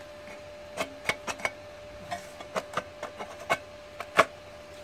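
Irregular light clicks and knocks of small parts being handled, about a dozen, the sharpest about four seconds in, over a faint steady tone.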